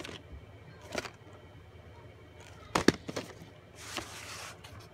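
Plastic VHS tape and case being handled: a sharp click about a second in, a quick cluster of louder clicks near the middle, then a brief rustling scrape.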